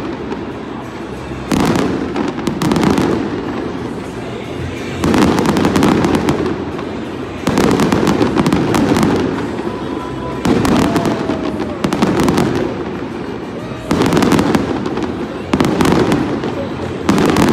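Fireworks display: aerial shells going off one after another, a loud bang about every two seconds. Each bang is followed by a rumbling echo that fades over a second or two.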